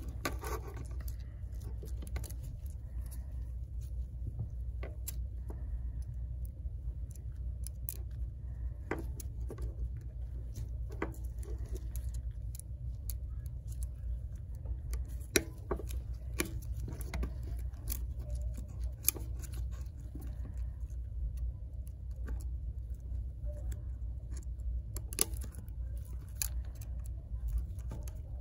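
Faint scattered clicks and taps of gloved fingers handling an opened iPhone 8 Plus as the new screen's flex cable connectors are pressed onto the logic board, with a few sharper clicks, over a steady low hum.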